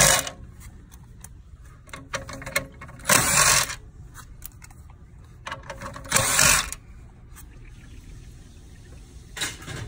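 Hands working wiring connectors loose on a hybrid inverter: several short scraping, rustling bursts a few seconds apart, with small plastic clicks between them.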